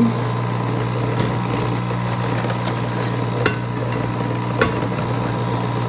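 Coffee machine running with a steady humming drone while it brews, with two sharp clicks about three and a half and four and a half seconds in.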